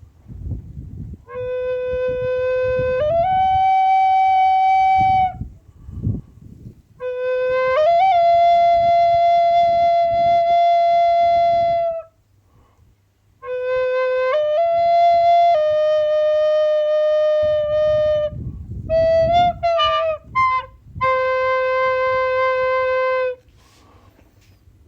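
A solo flute plays slow, long held notes in three phrases, moving between a low note and one about a fifth higher, with quick ornamented turns in the last phrase. A low rumbling noise runs underneath.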